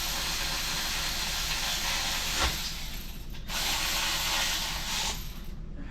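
Ratchet wrench clicking rapidly in two runs with a short break between, as bolts are worked during a fuel-injector swap.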